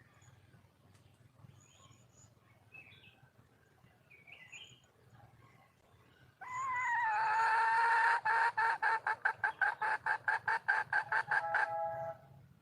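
Wild junglefowl hen calling. About six seconds in comes one loud, drawn-out note, which breaks into a rapid run of short notes, about six a second, and stops near the end. Faint chirps from small birds are heard before it.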